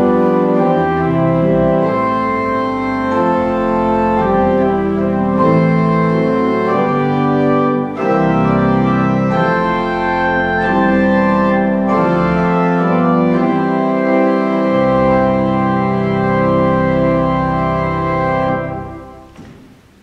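Church organ playing full sustained chords over a deep pedal bass. The final chord dies away into the room's echo a second or two before the end.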